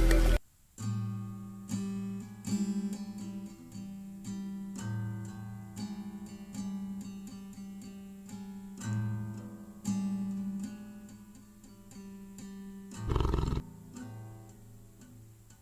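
Soft acoustic guitar music, single plucked notes and chords ringing out and fading one after another. A loud sound cuts off abruptly at the very start, and a short rough burst of noise sounds about thirteen seconds in.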